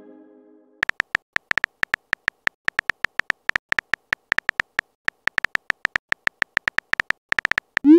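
Phone keyboard typing sound effects: a long, irregular run of quick clicks, each with a slight pitched ring, broken by short pauses. The tail of a chime fades out in the first second, and a short rising whoosh of a message being sent comes just before the end.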